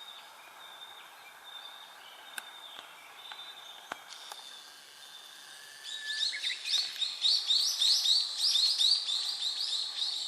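Songbirds singing over the steady hiss of a mountain stream; about six seconds in, a bird starts a louder, fast run of repeated high chirps that becomes the loudest sound.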